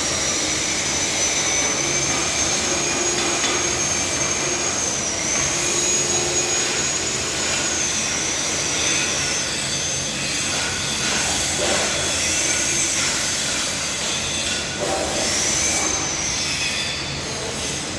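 Loud, steady mechanical noise with a thin high-pitched squeal running over it that wavers and dips in pitch several times.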